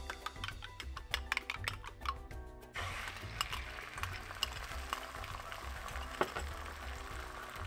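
Light clicking at first, then beaten egg poured into hot oil in a frying pan starts sizzling about three seconds in, with background music throughout.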